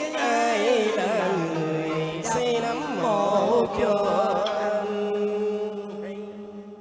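Vietnamese cải lương music: a drawn-out, ornamented vocal phrase with wide vibrato over sustained instrumental accompaniment, fading away over the last couple of seconds.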